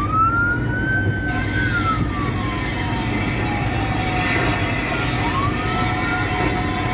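A slow wailing emergency-vehicle siren, typical of a fire truck. It climbs at the start, holds high, sinks slowly over about four seconds, and climbs again about five seconds in, over a steady low engine rumble.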